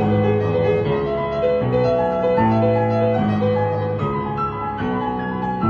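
Background music led by piano, slow sustained chords changing about once a second.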